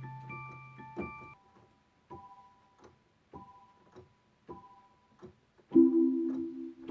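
Yamaha electronic keyboard playing. A held chord stops about a second in, then come soft, evenly spaced clicks with short high notes, and near the end a loud, low chord is struck and held.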